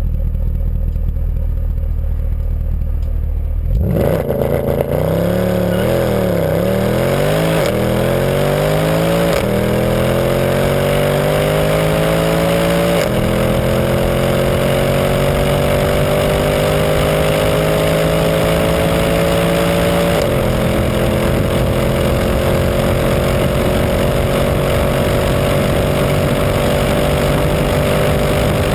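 Mercedes C63 AMG's 6.2-litre naturally aspirated V8 under full-throttle acceleration from a standstill, heard from inside the cabin. It holds a low steady note for about four seconds, then launches; the revs waver up and down briefly before climbing steadily, with four upshifts, each a sudden drop in pitch, the last about twenty seconds in.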